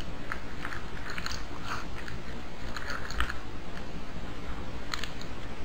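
Footsteps crunching in snow, about two steps a second.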